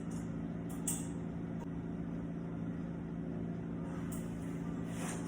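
Steady low mechanical hum made of several held tones, with one faint click about a second in.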